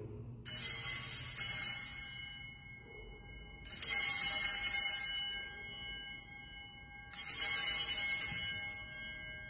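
Sanctus bells (altar bells) rung three times, about three and a half seconds apart, each ring a bright jangle that fades slowly. They mark the elevation of the host at the consecration of the Mass.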